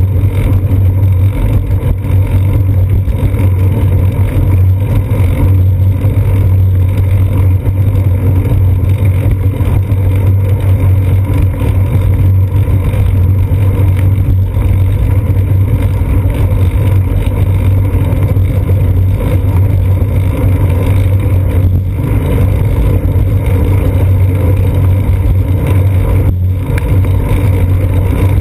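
Loud, steady drone and rumble of a bicycle rolling along a concrete sidewalk, picked up through a seat-post-mounted GoPro Hero 2, with a deep hum that never lets up.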